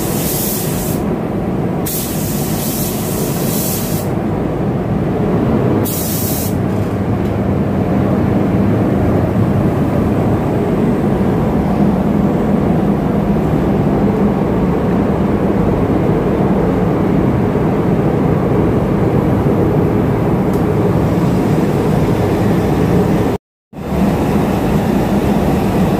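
Gravity-feed paint spray gun hissing in three short bursts over the first six seconds as PP primer is sprayed onto a car panel, over a steady low rush of moving air. The sound cuts out briefly near the end.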